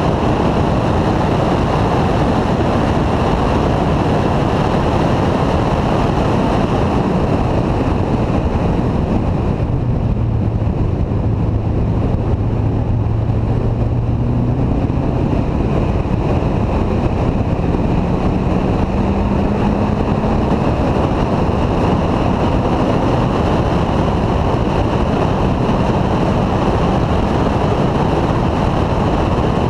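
Steady wind rush over a hood-mounted camera on a C6 Corvette at track speed, with the car's V8 engine faintly beneath it. About ten seconds in the wind eases and the engine note sits low as the car slows for a turn, then the engine note rises again as it accelerates.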